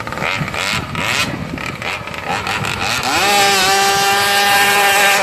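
Small two-stroke brush-cutter engine driving a radio-controlled longtail boat. It runs unevenly at first, then about three seconds in it revs up sharply and holds a steady, high-pitched full-throttle whine.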